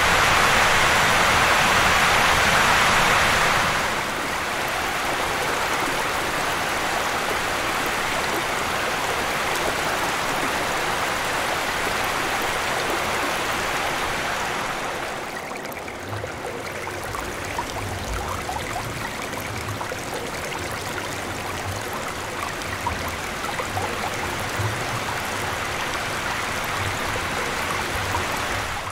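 Shallow river water rushing and burbling over cobbles in a fast riffle, heard close to the surface. It is loudest for the first few seconds, then steadier and softer, and drops again about halfway with a fine splashing crackle.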